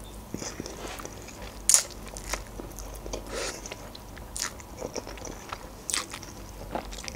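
Close-up eating sounds of a mouthful of instant noodles being sucked in and chewed, with scattered sharp wet mouth clicks. The loudest click comes nearly two seconds in.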